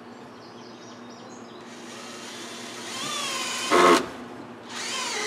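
Cordless drill driving into the wood overhead. The motor whine builds about two seconds in, wavering in pitch, and ends in a short loud burst near four seconds. A second run starts just before the end.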